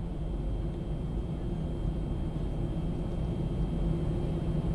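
Steady low vehicle engine rumble, with a faint high whine held steady over it.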